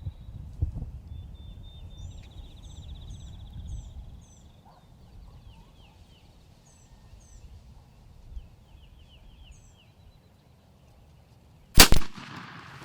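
Small songbirds chirping and trilling over a low outdoor rumble, then a single loud shotgun blast near the end: the shot that kills the turkey.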